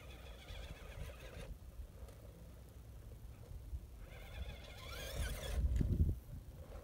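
Electric RC rock crawler's motor and drivetrain whining in two bursts as it climbs a rock slab, the pitch rising about five seconds in. A low wind rumble on the microphone runs underneath and swells into a loud gust near the end.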